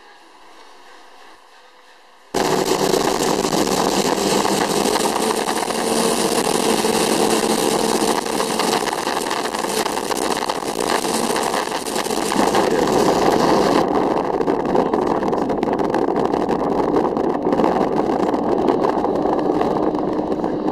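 Turbocharged Eliminator speedboat with a 2JZ six-cylinder engine running at speed, heard from on board as a loud, steady rush of engine, wind and water that starts suddenly a couple of seconds in. The high hiss eases about two-thirds of the way through.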